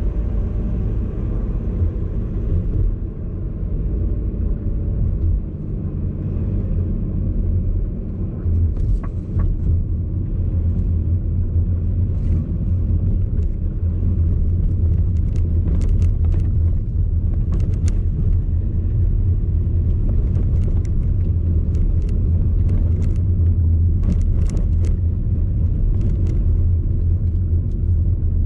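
Steady low road and engine rumble inside a VW Golf Alltrack's closed cabin at low speed, broken by irregular sharp rattles and clicks, most of them from about nine seconds in until near the end. The rattle is the fault the owner traces to the passenger-side suspension and hears over bumps and irregularities.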